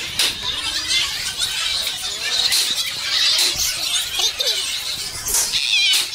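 A lively crowd of young people chattering, shouting and shrieking all at once, with high-pitched squeals near the end.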